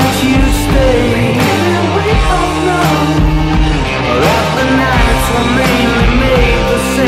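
Rock song recording playing at a steady level: drums keep a steady beat under bass, guitar and a sung vocal line.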